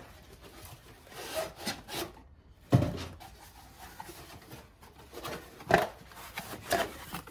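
Cardboard packaging being handled and pulled apart: rubbing and rustling, with a sharp knock about three seconds in and smaller knocks near the end.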